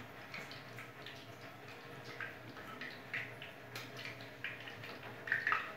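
Hot frying oil in an iron kadai crackling quietly with scattered small spits and pops, left on the flame after the fried potatoes were lifted out, over a low steady hum.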